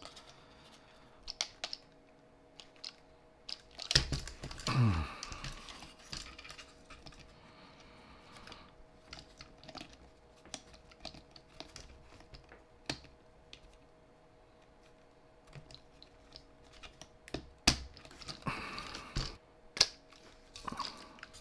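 Small plastic clicks and taps of hand assembly as rubber-tyred plastic wheels are pressed onto the shafts of yellow plastic gearmotors on a robot car chassis. About four seconds in there is a louder noise that falls steeply in pitch, and the handling gets busier near the end.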